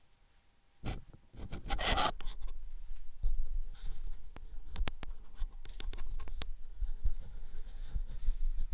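Scratching and rubbing close to the microphone, with scattered sharp clicks and low thumps, starting about a second in.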